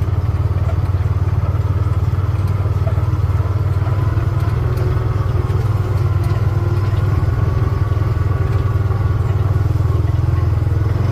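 Vehicle engine running steadily with an even low hum while driving slowly and cautiously down a hill.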